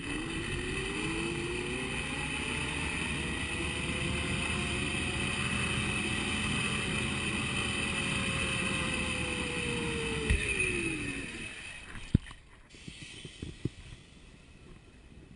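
Zip line trolley pulleys running along the steel cable: a whine that rises in pitch as the rider picks up speed, holds steady, then falls away as the trolley slows to a stop, over a constant rushing noise. A few sharp knocks follow once it has stopped.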